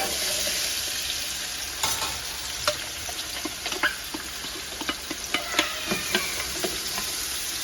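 Onion frying in hot oil in a pan: a steady sizzle, with scattered clicks and scrapes of a utensil stirring it.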